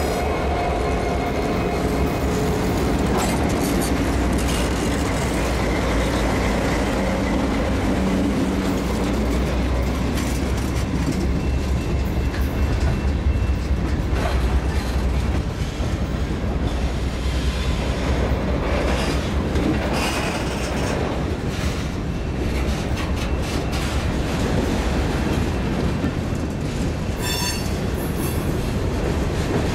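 Freight train passing close by. The CN diesel locomotives' engines are heard going past at first, then a steady rumble and clatter of freight cars and covered hoppers rolling over the rails. A brief high wheel squeal comes near the end.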